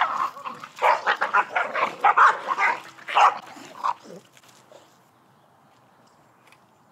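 A dog barking repeatedly in a quick run of loud barks, which stops about four seconds in.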